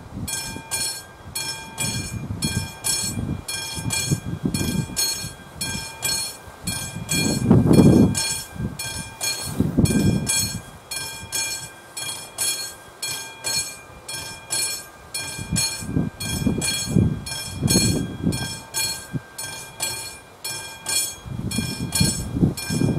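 Classic electric level-crossing bell ringing in quick, even strokes, the warning that a train is approaching. Irregular low rumbles come and go underneath, loudest about a third of the way in.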